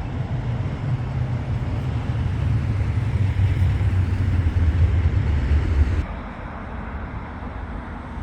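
Outdoor city ambience: a steady low rumble of traffic or wind noise. It drops abruptly to a quieter, thinner rumble about six seconds in.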